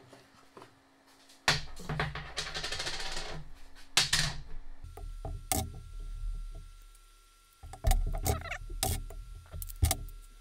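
Tools and metal parts handled on a workbench while a seal driver is set on a differential case's seal: a stretch of rustling about a second and a half in, a sharp knock near four seconds, then scattered clinks and knocks with brief metallic ringing.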